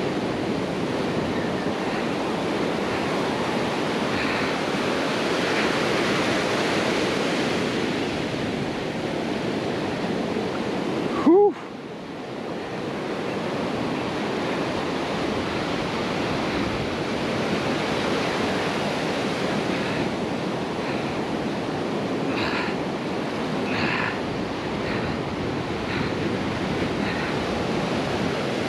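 Ocean surf breaking and washing up the beach in a steady rush, with wind buffeting the microphone. About eleven seconds in, a brief loud sound with a quick pitch swoop cuts through, and the surf drops away for a moment after it.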